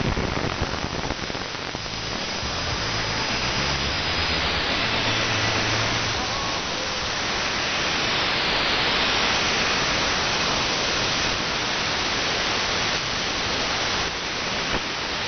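Radio static: steady hiss from an online SDR receiver tuned between stations, with faint low hum under it and a few crackles near the end.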